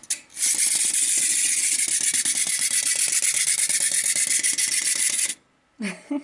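Clockwork motor of a small plastic wind-up walking bird toy whirring as the toy walks along a table: a fast, even rattle of ticking gears and feet. It stops abruptly about five seconds in.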